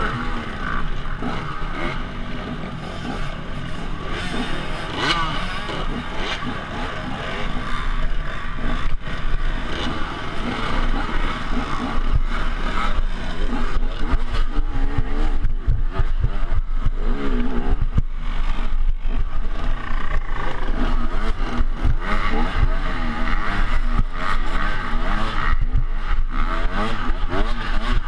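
Dirt bike engine running and revving up and down while ridden over rough trail, its pitch rising and falling, with frequent short knocks from the bumps in the second half.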